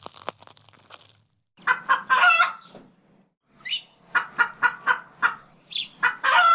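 Chicken clucking: a run of short clucks at about four a second, set between longer drawn-out calls, after a few faint clicks at the start.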